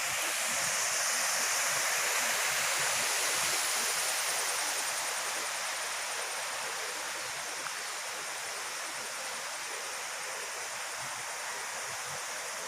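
Steady hiss of heavy rain falling, growing a little softer after about five seconds.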